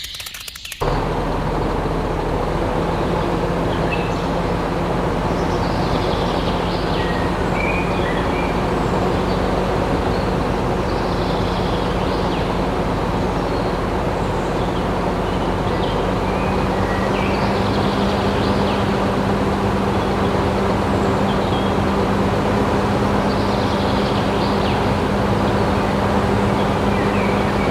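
A small machine's motor running steadily with a continuous hum, starting abruptly about a second in, with faint bird chirps behind it.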